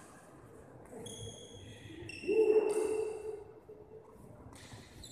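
Badminton shoes squeaking on the court floor several times as a player moves, with a sharp hit right at the start. The loudest sound is a lower, drawn-out squeak a little past two seconds in.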